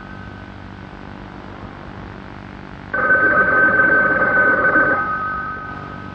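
A ringing tone made of a few steady high pitches starts suddenly about three seconds in, holds for about two seconds and then fades away.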